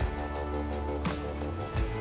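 Background music with a steady beat: drum hits over a deep bass and sustained chords.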